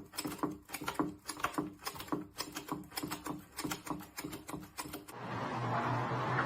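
A quick, even series of light clicks or taps, about three a second, that stops abruptly about five seconds in, giving way to a steady low hum with hiss.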